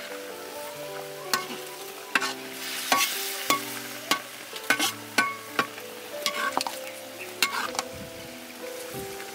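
Turtle meat frying and sizzling in a pan, stirred with a utensil that clicks and scrapes against the pan more than a dozen times at uneven intervals. Soft background music plays underneath.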